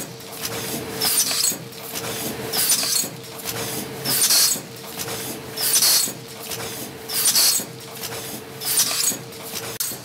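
Automatic pouch packing machine running through its cycle: a short hiss about every one and a half seconds over a steady hum, the hum stopping just before the end.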